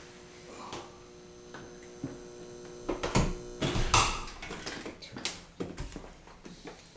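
Steady electrical hum, then from about three seconds in a run of sharp clicks and knocks as two interior room doors are unlatched by their lever handles and swung open.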